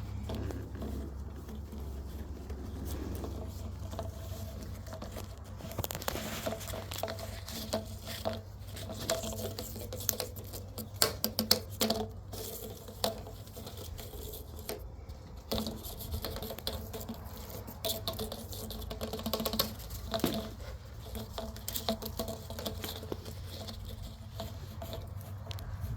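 Shiba Inu puppies' paws pattering and scrabbling on the floor as they play, with irregular ticks and small squeaks.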